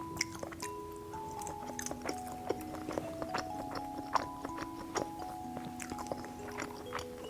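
Background music of held melodic notes, over frequent short, sharp crunching clicks of someone chewing fried skewers.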